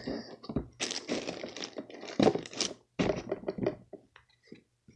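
Plastic Kirby vacuum attachments being handled and pushed into their storage slots: a run of knocks, cracks and rustling, thickest about three to four seconds in and falling quiet near the end.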